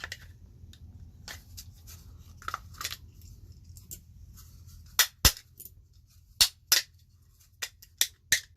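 Sharp clicks and clinks of hand tools and small metal parts being handled on a work table: a few scattered at first, then a run of louder ones in the second half. A low hum underneath stops about five seconds in.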